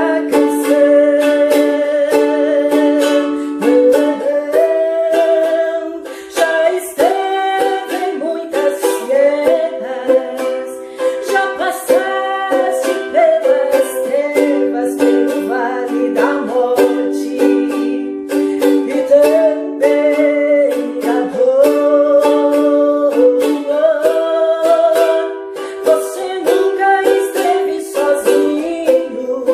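Ukulele strumming the chords of a hymn at a steady tempo, with a melody moving over held chord notes.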